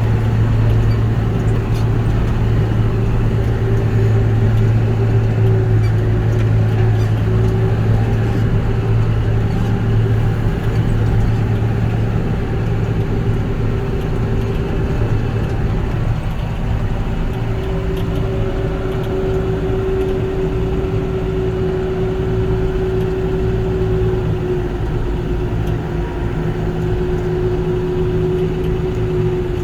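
Harvest machinery's engine running steadily at working speed: a constant low hum with a steady higher whine above it.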